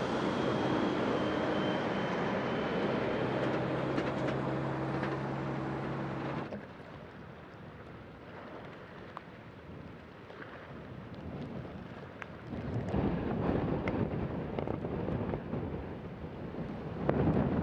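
Traffic on a highway: cars and pickup trucks passing, their engines and tyres making a steady noise. About six seconds in it cuts to quieter gusting wind, and later to strong wind buffeting the microphone over churning storm surf, loudest near the end.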